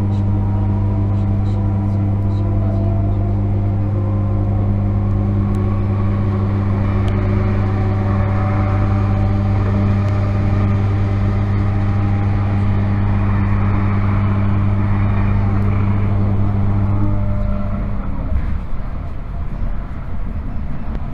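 Inside a Z 20500 electric multiple unit at speed: a steady electrical hum and several whining traction tones that drift slightly in pitch, over the rumble of wheels on rail. A louder rush of noise swells around the middle as another train passes alongside. About 18 s in the hum and whine cut out, leaving only the uneven rolling rumble, as traction power is shut off.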